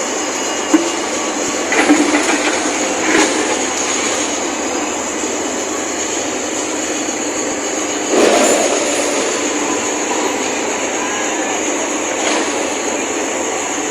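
JCB backhoe loader working: its engine and machinery run steadily, with several clanks and scrapes. The loudest is a scrape about a second long, about eight seconds in.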